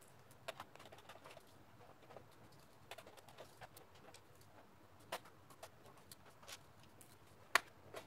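Scattered small clicks and taps of a plastic laptop case and loose screws being handled, as the bottom of an HP 15 notebook is taken apart. The sharpest click comes near the end, as the optical disc drive is pulled free of its bay.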